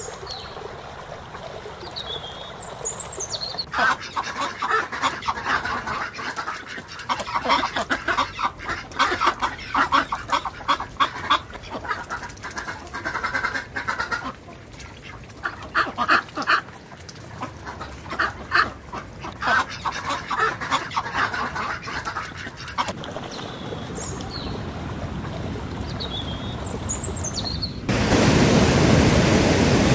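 Ducks quacking in a long, rapid run of calls, with short high phrases of a small songbird before and after. Near the end it cuts to the loud, steady rush of white water in rapids.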